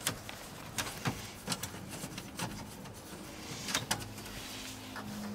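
Screwdriver working screws out of a truck's plastic dashboard bezel: a scattering of small, sharp clicks and scrapes at irregular intervals.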